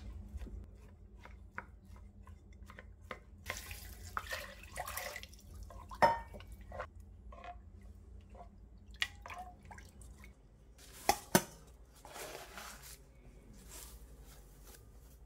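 A plastic rice paddle stirring cooked rice in water in a rice cooker's inner pot: water sloshing and dripping, with the paddle scraping and clicking against the pot. A few sharp knocks stand out, the loudest about six seconds in and a quick pair near eleven seconds.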